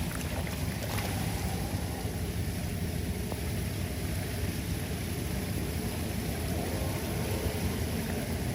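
Floodwater rushing steadily down an unclogged street drain, a low, even rumble with a few faint clicks about a second in.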